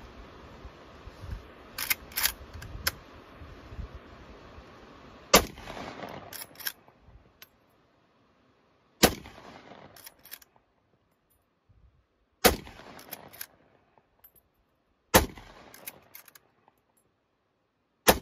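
Winchester Model 94 lever-action rifle in .30-30 firing five shots about three to four seconds apart, with quieter clicks between shots as the lever is worked to eject the spent case and chamber the next handloaded round.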